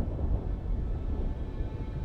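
Low, rolling rumble of distant thunder, with soft sustained music notes beginning to come in over it.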